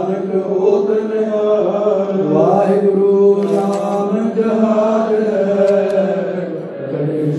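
Male voices chanting a Sikh devotional recitation in long, sustained melodic tones over a microphone, without a pause.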